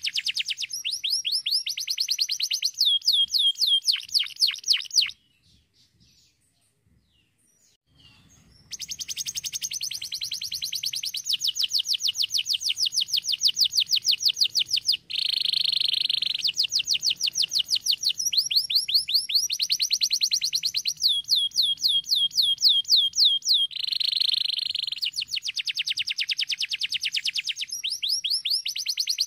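Domestic canary singing: long rolls of fast, evenly repeated high trilled notes, with some denser buzzy phrases. The song breaks off for about three seconds around five seconds in, then resumes.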